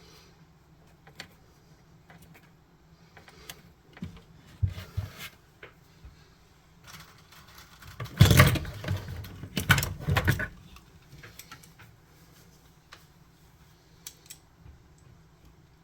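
Small clicks and rattles of hand work on a wiring connector, with metal pins, wires and a small hand tool being handled, scattered and sparse, with a louder, busier run of clicking and scraping about eight to ten seconds in.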